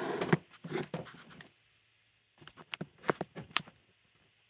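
Handling noise of a camera being picked up and repositioned: a rustling scuffle with knocks, a brief pause, then a run of sharp clicks and knocks.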